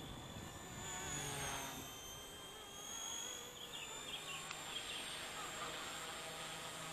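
Micro electric RC helicopter with a 2627 4200 kV motor and three-blade main rotor flying overhead: a faint, thin, high whine whose pitch drifts up and down a little as it manoeuvres.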